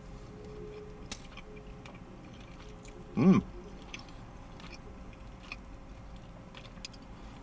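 A man chewing a mouthful of fried chicken, with faint wet mouth clicks, and a short hummed vocal sound about three seconds in.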